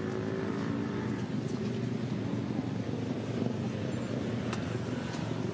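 A steady, low engine drone, with a few faint clicks.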